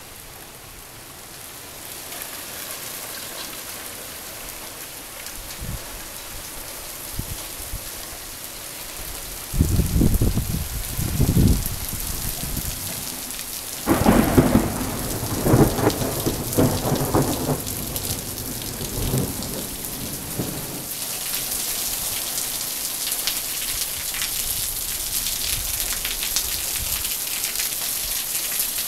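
Monsoon thunderstorm: rain falling steadily while thunder rumbles, once about ten seconds in and again, louder and longer, about fourteen seconds in. For the last several seconds the rain comes down harder as a dense hiss.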